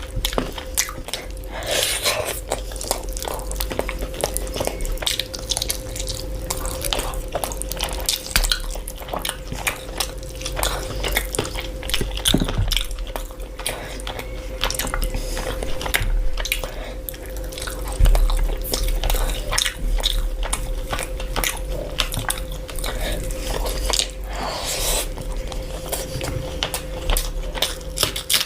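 Close-miked crunchy food being bitten and chewed: dense, irregular crackling crunches, with a faint steady hum underneath.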